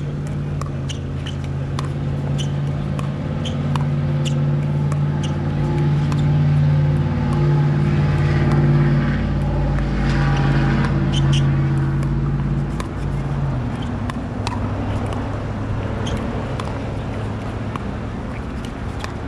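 Pickleball paddles hitting a plastic ball in a long rally: sharp pops, roughly one every second. Under them a vehicle engine runs steadily, growing louder in the middle and dropping away about 13 seconds in.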